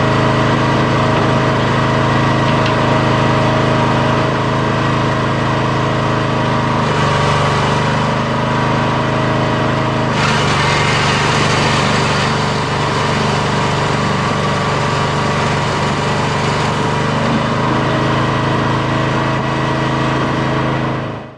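A small motor running steadily with an even hum, getting harsher for a few seconds about seven and ten seconds in, then cutting off abruptly at the end.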